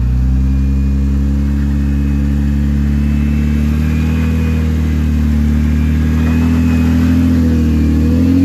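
Jeep Wrangler Rubicon's engine running at low, steady revs as it crawls up steep slickrock, the revs rising slightly near the end.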